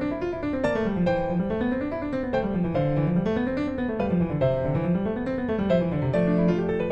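Background piano music: a flowing melody over a bass line that rises and falls in runs of notes.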